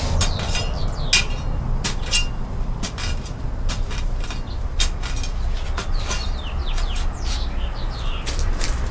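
Irregular sharp scraping strikes of a hand tool digging a shallow drainage trench in the ground, with a few birds chirping between them.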